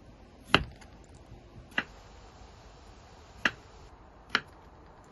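Chef's knife slicing peeled raw potatoes on a wooden cutting board, the blade striking the board in four sharp knocks a second or so apart.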